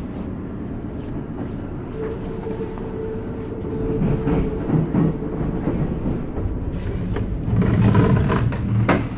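Steady low rumble inside the carriage of a Kintetsu limited express train, with a steady hum for a few seconds in the middle. Near the end it grows louder and noisier when passing through the end door into the vestibule.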